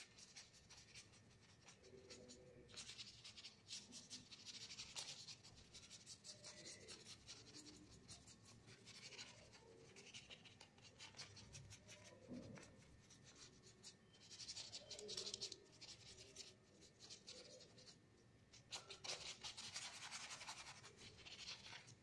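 Faint scratchy strokes of a paintbrush's bristles rubbing paint across paper, coming in several runs of quick back-and-forth strokes.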